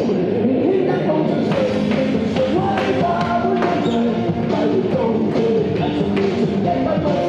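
Rock-style band music with a steady beat and held melody notes.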